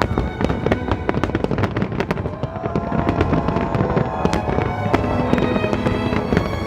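Fireworks going off in a dense, rapid barrage of cracks and bangs, with classical violin music playing over them.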